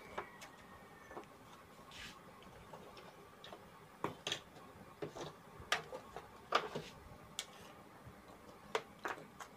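Screwdriver tightening the mounting screw of a CRT television's output transistor: a dozen or so faint, sharp clicks and ticks of metal on metal, irregularly spaced.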